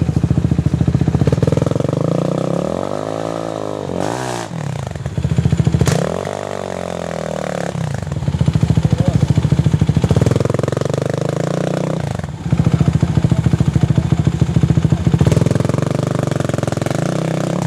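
Sport ATV (quad) engines running. One holds a steady note while another revs up and down several times as the throttle is worked.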